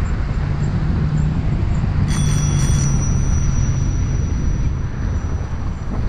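Wind and road rumble from riding a bicycle. About two seconds in, a bicycle bell is rung twice in quick succession, and its high ring lingers for a few seconds.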